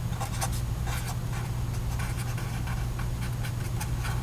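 Buttons on a TI-84 Plus graphing calculator being pressed one after another: a run of short, irregular plastic key clicks, over a steady low hum.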